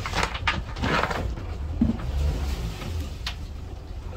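Rustling and knocking of lines and gear being handled on a sailing yacht's deck, busiest in the first second or so, with one sharp click about three seconds in, over a steady low rumble.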